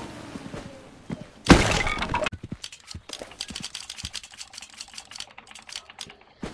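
A sudden loud crash about a second and a half in, followed by several seconds of rapid clicking and clattering.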